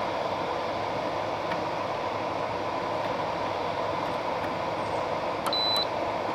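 Frigidaire dehumidifier running with a steady fan whoosh, and its control panel gives one short high beep near the end as a button is pressed, a sign the buttons respond again now that their dirty contacts have been cleaned.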